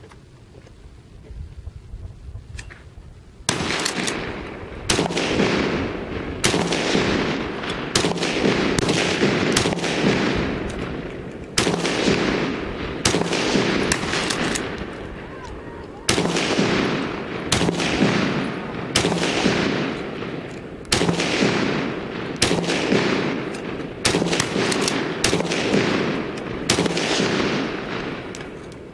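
Semi-automatic SKS rifle (7.62×39mm) in a bullpup stock firing about twenty shots at roughly one a second, each shot trailing off in a long echo. The shooting begins about three and a half seconds in.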